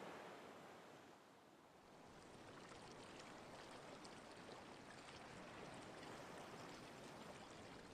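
Faint, steady rush of flowing water, dipping briefly about a second and a half in and then running on evenly.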